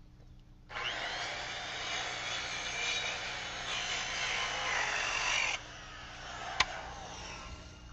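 Circular saw tilted to a 45-degree bevel cutting through a wooden floor joist. The cut starts just under a second in and runs about five seconds, then drops off sharply to a quieter run-down with a single click.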